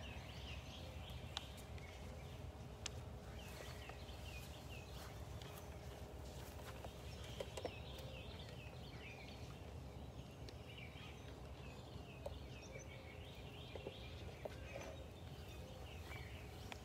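Many small birds chirping and twittering in a dawn chorus over a low steady outdoor rumble, with scattered faint clicks.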